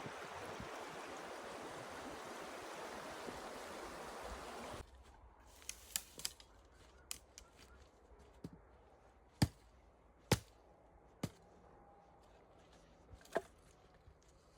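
Water running steadily, cut off suddenly about five seconds in. Then comes a quieter stretch of sharp, separate knocks, roughly one every second, the loudest near the middle.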